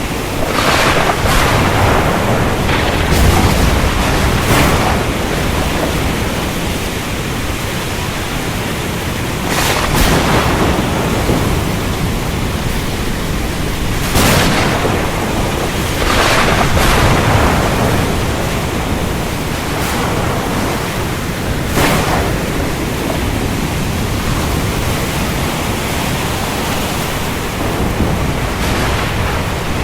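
Thunderstorm: steady heavy rain with a series of sharp thunder cracks, several near the start and others scattered through, backed by low rumbling.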